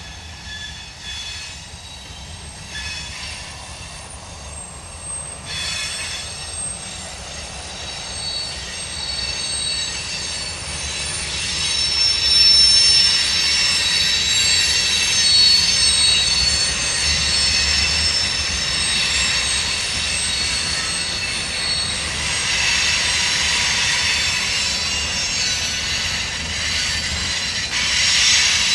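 Freight train's tank cars and covered hoppers rolling past, their wheels squealing in several high, steady tones that build from about a third of the way in and stay loud to the end. A few wheel knocks sound in the first six seconds.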